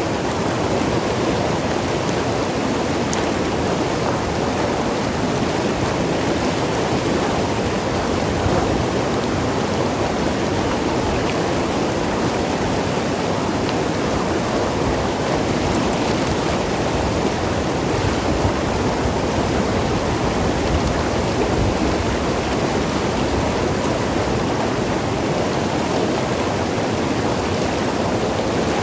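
Mountain river rushing and gurgling over rocks: a steady, full water noise.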